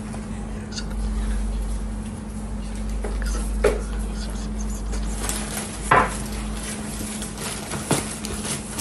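Objects knocking and clattering as gift boxes and things on a laden table are handled and set down: three sharp knocks, the loudest about six seconds in, over a steady low hum.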